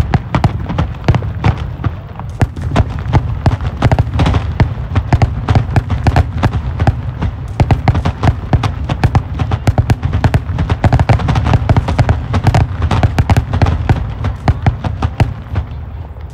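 Fireworks going off in a rapid, unbroken run of bangs and crackles over a steady low rumble.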